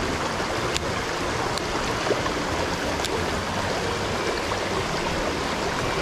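Mountain stream rushing steadily over rocks in shallow riffles and small cascades.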